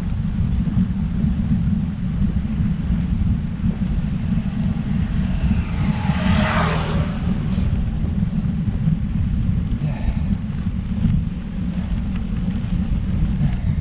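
Wind buffeting the microphone of a road bike rider's camera while riding, a steady low rumble. About six or seven seconds in, a vehicle passes, its noise swelling up and then fading away.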